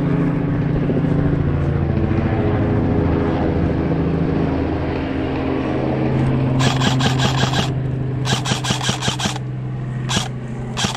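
A steady engine drone, its pitch dropping slightly about halfway through. About six and a half seconds in come two short bursts of rapid airsoft gunfire, each about a second long, then two single shots near the end.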